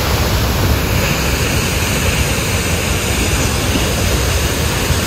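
Water released from a dam outlet, shooting out and pouring into the river below: a loud, steady rush.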